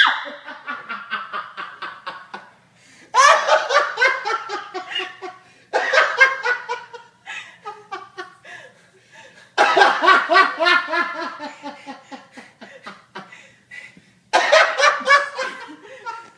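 A man laughing hard in repeated bouts of quick "ha-ha" pulses, about five times, each bout starting loud and trailing off.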